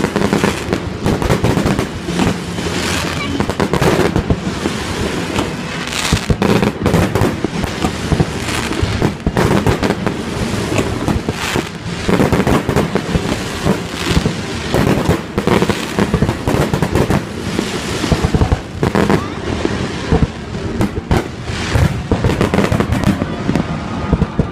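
Aerial firework shells bursting in a fast, overlapping run of bangs and crackles.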